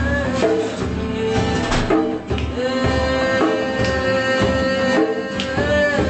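Live band jam: a conga played by hand beats out a rhythm under guitars and keyboard, with a long held melodic note through the middle.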